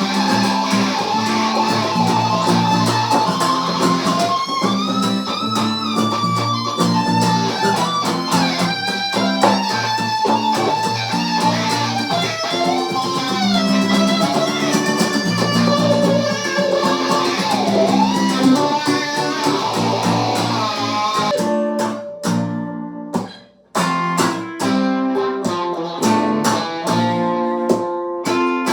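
Guitar jam: a melodic lead line with string bends and slides over a repeating lower guitar part. About 22 seconds in the playing drops out almost to nothing for a moment, then comes back in shorter, choppier notes.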